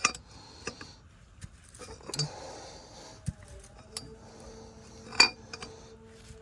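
Scattered metallic clicks and clinks of a wrench and socket on a manual transmission's drain plug as it is tightened snug. The clinks come about a second apart, with the sharpest a little after five seconds in.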